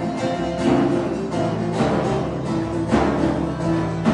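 Live acoustic folk music played on a bağlama (long-necked saz) and an acoustic guitar, plucked and strummed together with a strong accent about once a second.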